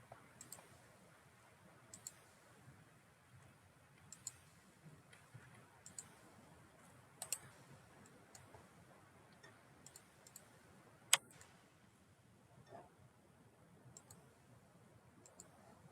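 Computer mouse clicking: scattered sharp clicks every second or two, some in quick pairs, with one louder click about eleven seconds in, over faint room hiss.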